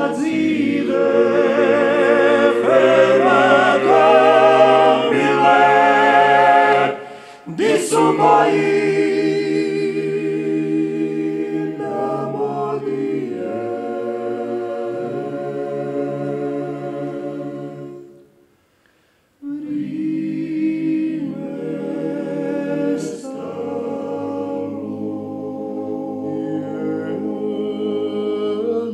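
A male klapa ensemble of ten voices singing unaccompanied in close multi-part harmony, sustained chords with vibrato over low bass lines. The singing breaks off twice between phrases, briefly about a third of the way in and for about a second about two-thirds through, then resumes.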